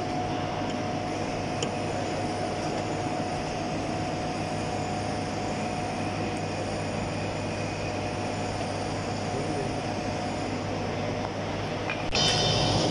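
Steady hum of running workshop machinery, with a constant tone in it. Near the end a brief, louder noise cuts in over the hum.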